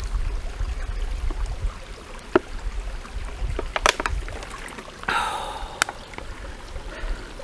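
Man drinking from a plastic water bottle: scattered short clicks of swallowing and the bottle crackling over a low steady rumble. About five seconds in, as he lowers the bottle, there is a short breathy exhale.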